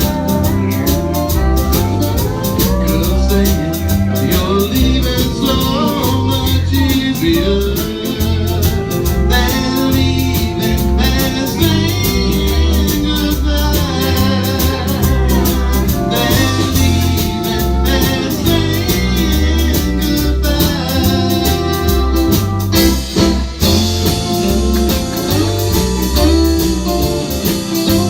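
Live band playing a slow country song: a steady bass beat and guitar under a wavering lead melody line.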